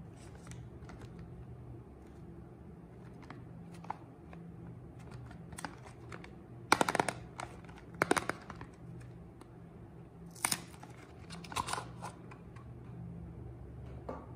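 Fingers tapping and scratching on a cardboard White Balance soap box, then the box being opened and the glycerin bar taken out, with several sharp crackles and rips of cardboard about halfway through and again a few seconds later. A steady low hum runs underneath.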